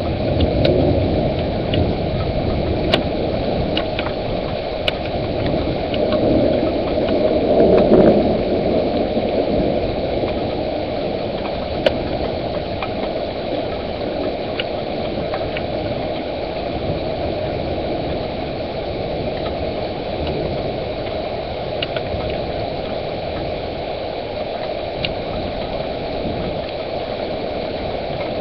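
Thunderstorm: a steady wash of rain noise with a low rumble that swells about six to eight seconds in, and scattered sharp ticks of drops.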